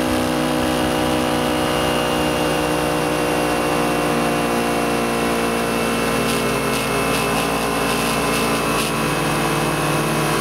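2008 Kawasaki Ninja 250R's parallel-twin engine running at a steady cruise, its pitch easing down a little over the first few seconds and then holding even. A few brief clicks come in between about six and nine seconds in.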